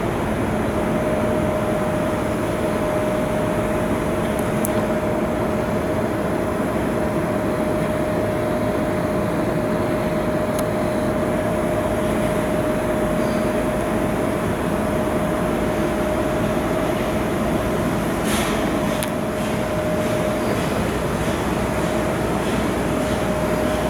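Steady machinery noise in a shipyard, a constant drone with a steady mid-pitched whine over it and a few faint clicks and knocks.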